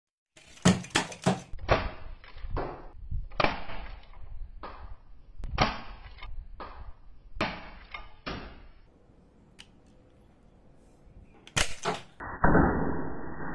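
A 3D-printed four-barrel, four-plunger spring-powered Nerf pistol (the 4XP) being fired at a target, heard as a quick run of sharp clacks and snaps from the plungers and the darts striking. After a pause come two more sharp clacks near the end, then a duller, muffled rushing noise.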